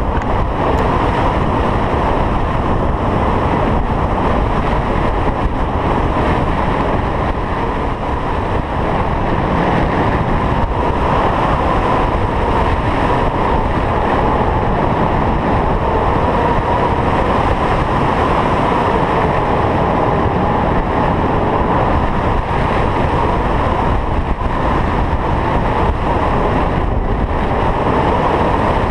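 Steady rush of wind over a GoPro camera mounted on a hang glider, from the airflow of the glider in flight. It is an even noise with no breaks.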